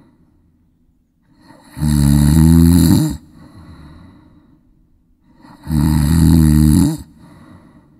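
Sleeper snoring in a slow regular rhythm: two long, loud snores about four seconds apart, each lasting a little over a second, with quiet breathing between them.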